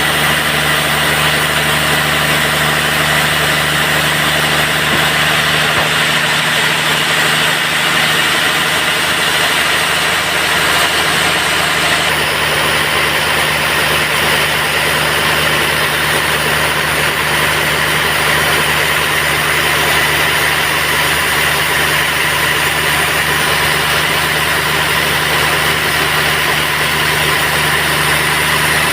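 Band sawmill running steadily with a constant machine drone, its sound shifting slightly about twelve seconds in.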